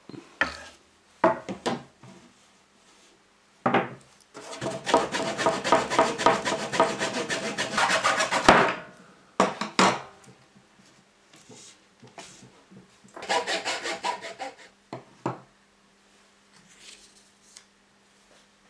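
Hacksaw cutting through a green wooden stick in quick back-and-forth strokes for about four seconds, the cut ending sharply a little past the middle; a shorter run of strokes comes a few seconds later. Single knocks of wooden sticks set down on a wooden table come between the sawing runs.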